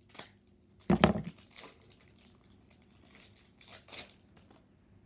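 Foil Pokémon booster-pack wrapper crinkling and rustling as it is opened, in short bursts, with a heavy thump about a second in.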